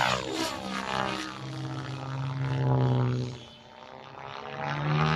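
Electric RC helicopter flying aerobatics overhead: a pitched rotor-and-motor drone whose pitch slides down and back up as it manoeuvres. It fades about three and a half seconds in, then swells again.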